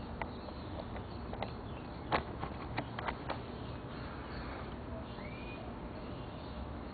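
A few sharp clicks and taps over a low, steady background, with one short chirp about five seconds in.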